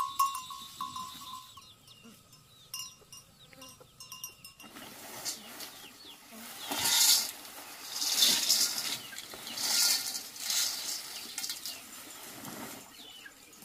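Plastic tarpaulin and woven feed sack rustling and crackling in several loud bursts as they are pulled and handled, followed near the end by dry grain pouring into a metal basin.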